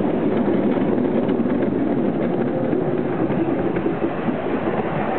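Miniature railway train running along its track, heard from an open carriage: a steady, even rumble of the small locomotive and the carriage wheels on the rails.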